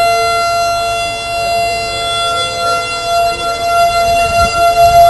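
Outdoor civil-defense siren sounding a steady held tone, the tornado warning signal. A fainter second siren tone drifts slightly underneath, and a few low rumbles come near the end.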